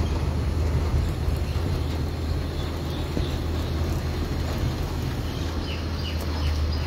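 Vehicle engine running low and steady with road noise while driving. A few short high chirps come through near the end.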